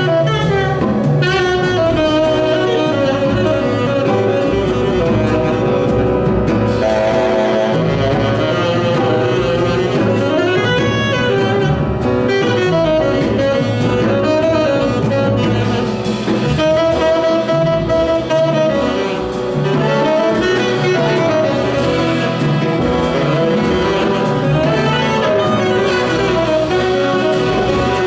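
Tenor saxophone playing a continuous jazz solo line over a big band's rhythm section, with double bass underneath.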